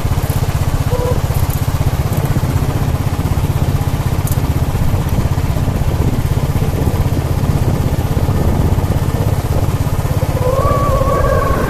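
A vehicle engine running steadily while driving along a dirt road, with a fast, even low throb. A wavering higher tone joins near the end.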